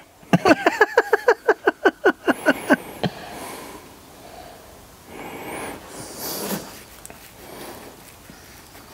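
Old bucket truck's engine cranking on the starter, an even chug of about six beats a second for nearly three seconds, then stopping without catching.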